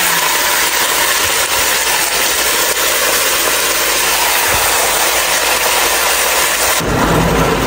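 Raw duck pieces sizzling in hot oil in a stainless steel pot as they are tipped in, a loud steady hiss. About a second before the end the hiss thins out and a lower rumble comes in.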